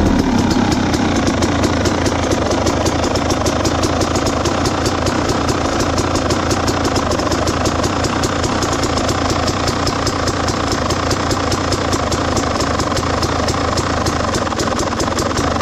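2017 Husqvarna TE300's two-stroke single-cylinder engine idling steadily at a standstill, with an even ticking about five times a second.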